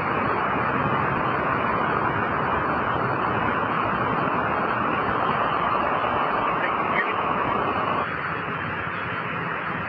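Steady roadside noise of traffic on a wet road with wind, an even hiss that drops in level about eight seconds in.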